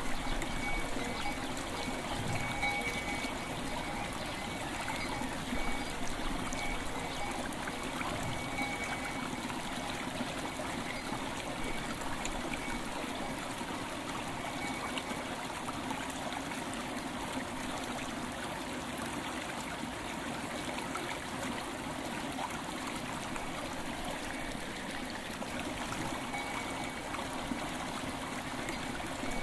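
River water flowing and trickling steadily, with faint ringing bell tones now and then.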